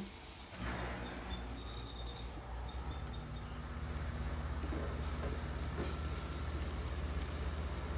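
A low steady hum that grows a little louder about four seconds in, with a few faint high chirps over it in the first few seconds.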